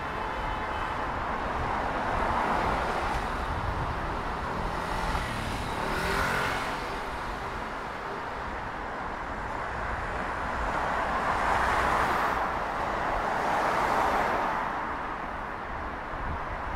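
Street traffic: a steady hum of cars on a city road, with several vehicles passing one after another, each swelling and fading.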